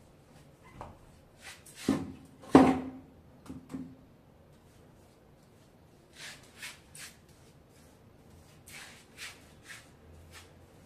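A plastic paint bucket set down on a tiled floor: two loud knocks about two seconds in, the second with a short hollow ring, and a couple of lighter knocks after. Later come two runs of short scratchy strokes from a paintbrush on a plastered wall.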